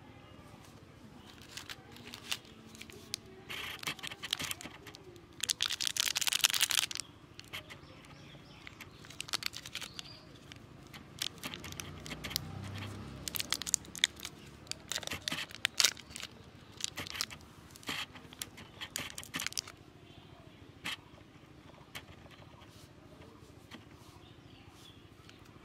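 Plastic candy wrapper crinkling and crackling as it is twisted and torn open by hand. There is a dense burst of crinkling about six seconds in, then scattered crackles that die away about twenty seconds in.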